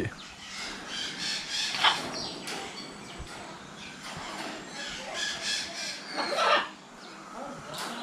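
Parrots squawking in an aviary: several short calls, the loudest about six and a half seconds in.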